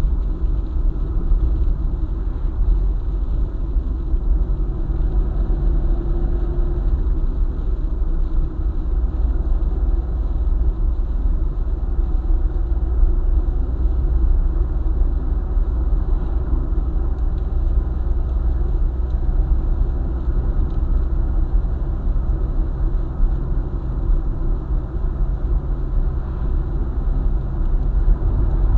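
Car driving along a highway at a steady speed: an even, low rumble of tyres, engine and road noise with no change throughout.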